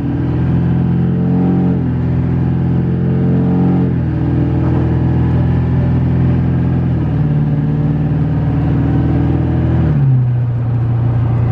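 Duramax 6.6-litre V8 turbodiesel pickup engine running while driving, heard from inside the cab. Its note steps up in pitch a couple of seconds in, drops back about four seconds in, rises again past the middle and drops once more near the end.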